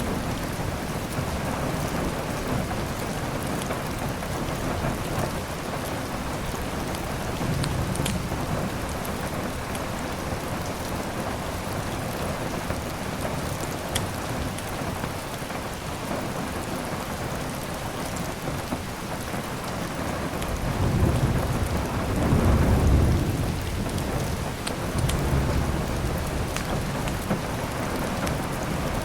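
Steady heavy rain with low rolling thunder swelling twice, the louder rumble about two-thirds of the way in and a shorter one soon after. A few sharp crackles from a fireplace stand out from the rain.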